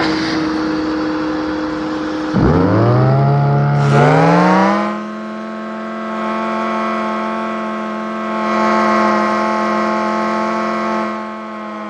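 Small homemade supercharged turbine spinning with a steady whine. About two and a half seconds in, a second, lower whine spins up, rising in pitch for a couple of seconds, then holds a steady pitch.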